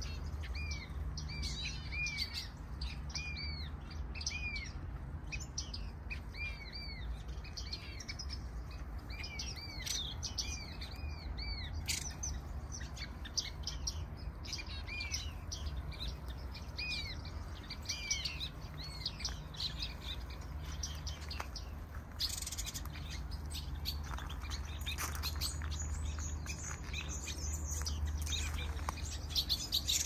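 Small aviary birds, finches and softbills, chirping and calling: short arching notes repeated again and again, growing busier and higher in the last few seconds, over a steady low rumble.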